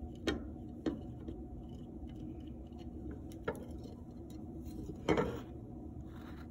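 Handling noise from threading yarn through a clay loom: a few light taps and clicks, then a louder knock about five seconds in as the clay loom is turned over and set back down on the wooden tabletop.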